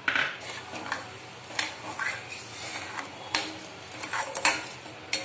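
Steel ladle stirring sugar and water in a steel kadai, scraping the pan and knocking against it every second or so, as the sugar dissolves for sugar syrup.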